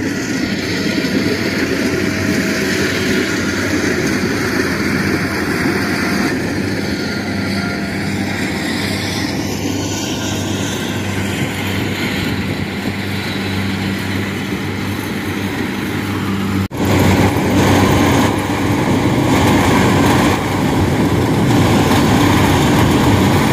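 Kubota DC-70 Plus rice combine harvester's diesel engine running steadily under load as it cuts and threshes rice, a loud, even machine drone. About two-thirds of the way through it breaks off for an instant and carries on a little louder.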